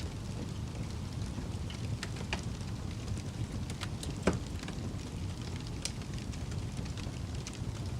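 Fire burning with a steady low rumble and scattered crackles and pops, the loudest pop about four seconds in.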